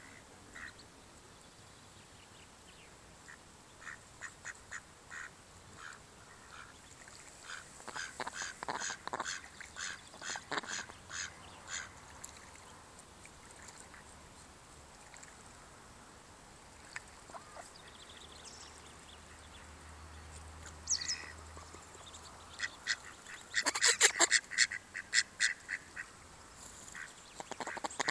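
Mallards calling in quick runs of short quacks: a few scattered ones early, a longer run from about eight to twelve seconds in, and the loudest run at about twenty-four seconds in.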